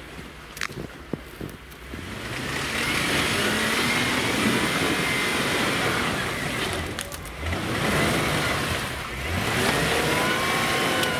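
An off-road vehicle's engine revving. It builds up about two seconds in after a few light knocks, then rises and falls in pitch several times.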